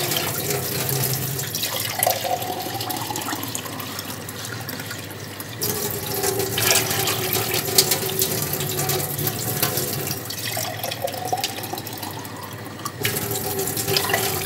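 Plastic whisk stirring a thin batter of matsun (yogurt), egg, flour and water in a steel pot: a steady liquid swishing with quick clicks of the whisk against the metal. Water is poured into the pot near the end.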